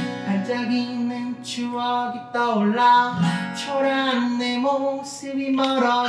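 Live acoustic pop song: two acoustic guitars strummed while a male voice sings a 'sha-la-la-la' refrain, with an egg shaker keeping time.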